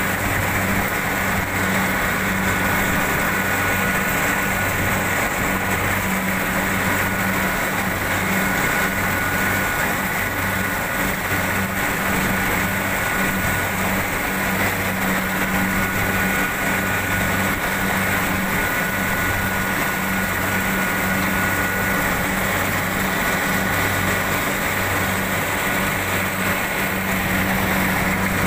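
Rice combine harvester running steadily while cutting: a low engine drone that pulses about once a second, with a steady high whine over it that steps up in pitch near the end.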